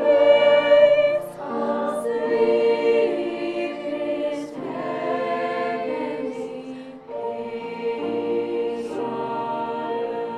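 High school choir singing in harmony, holding long sustained chords that change every second or two, with sharp 's' consonants sung together a handful of times.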